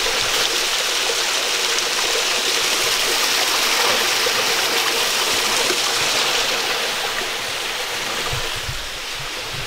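Water of a small jungle stream rushing over rocks in a steady hiss, easing a little near the end.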